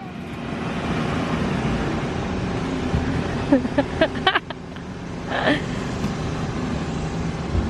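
Skid steer engine running steadily, with a few short higher-pitched sounds about halfway through.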